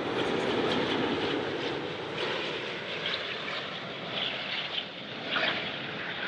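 Airbus A380's four Rolls-Royce Trent 900 turbofans on landing approach, a steady jet roar as it passes low overhead, loudest in the first second or two and then slowly fading as the aircraft moves away toward the runway.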